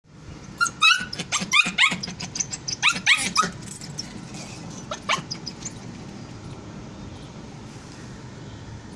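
Two-month-old Kuchi (Afghan shepherd) puppy giving a quick run of high-pitched yapping barks in the first few seconds, then two more about five seconds in.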